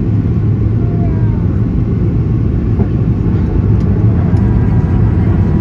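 Steady low rumble inside the cabin of a Boeing 737-800 airliner: its CFM56 jet engines and the airflow over the fuselage, getting slightly louder about four seconds in.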